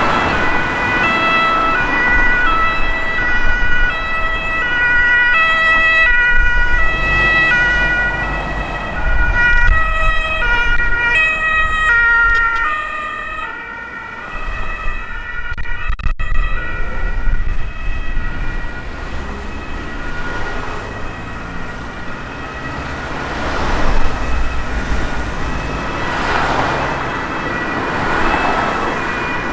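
German two-tone emergency-vehicle siren (Martinshorn) sounding, stepping back and forth between two pitches, with a steady high tone under it. Around halfway through the pitch drops slightly and the siren fades as the vehicle passes. Vehicle engine and road noise continue.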